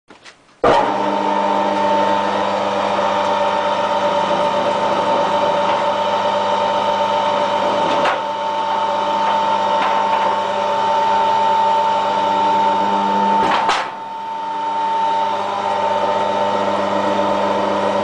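Electric wire stripping machine running with a steady motor hum as a thick aluminium cable with red PVC insulation is fed through its blades on a test pass to set them. Two sharp clicks come through, at about eight and about fourteen seconds in.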